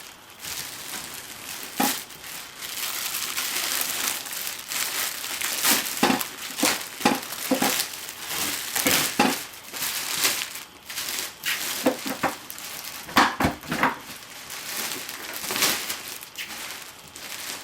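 Packaging crinkling and rustling as it is pulled out and handled, with irregular sharp crackles and bumps throughout.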